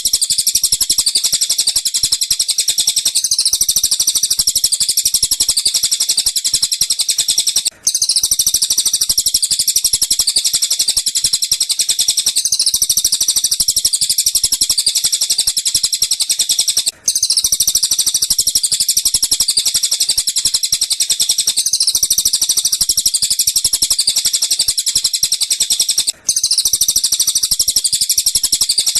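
Looped bird-song training recording of tengkek buto and cililin calls: fast, dense, high-pitched chirping that keeps going without pause, cut by a brief silent gap three times, about every nine seconds, where the loop restarts.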